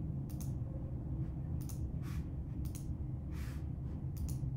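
Computer mouse clicking, four quick press-and-release double clicks a second or so apart, over a steady low hum of room or microphone noise. Two softer, longer hisses fall between the clicks.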